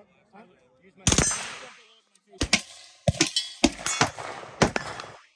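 Rifle gunshots. One shot about a second in with a long echoing tail, then a quick string of shots roughly half a second apart.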